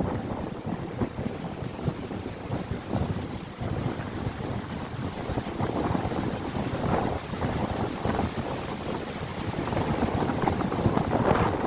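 Strong storm wind buffeting the microphone in irregular gusts, with a stronger gust near the end.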